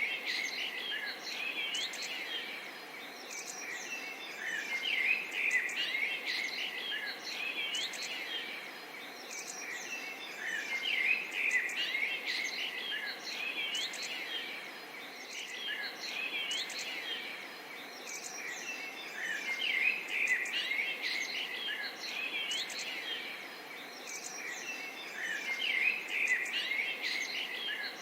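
Chorus of small birds chirping and trilling, with quick rising and falling sweeps, over a faint steady hiss; the chorus swells and eases about every six seconds.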